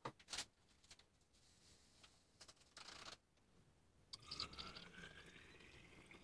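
Plastic funnel clicking into the neck of a glass swing-top bottle, then coconut wine running from the fermenter's spigot through the funnel into the bottle about four seconds in, a faint trickle whose pitch rises steadily as the bottle fills.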